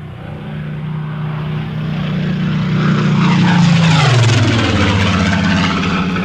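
Supermarine Spitfire's propeller engine flying past: the drone builds to its loudest about three to four seconds in, then drops sharply in pitch as the plane passes and carries on at the lower pitch.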